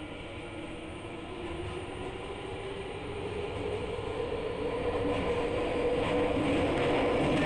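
Tokyu 5080 series electric train accelerating: the motor whine climbs slowly in pitch over the rumble of the running train and grows louder as the train picks up speed.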